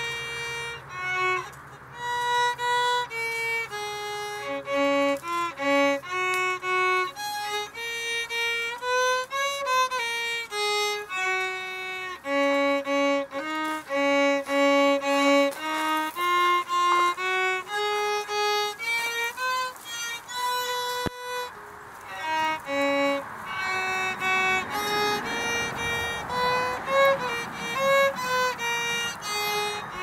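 Violin music: a single melody played one note at a time.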